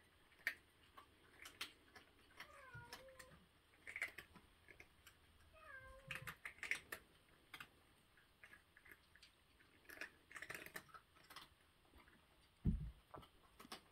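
Cats crunching dry cat food, a scatter of small crisp cracks, while a cat meows twice, each meow falling in pitch, about three and six seconds in. Near the end comes a dull thump, the loudest sound, as a cat jumps down to the floor.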